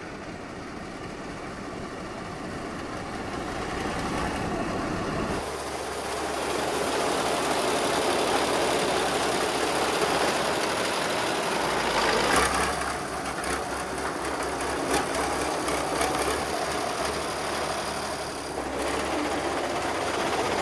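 Old crawler tractor's engine running steadily, with a few sharp knocks in the second half.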